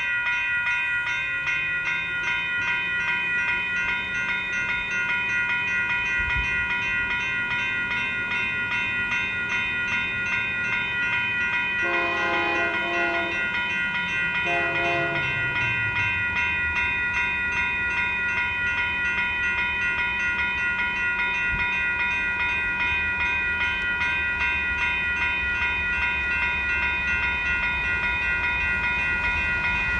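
Railroad crossing bell ringing steadily at the crossing signals. About twelve seconds in, the approaching locomotive's horn sounds: a longer blast followed by a short one. A low rumble from the oncoming train grows near the end.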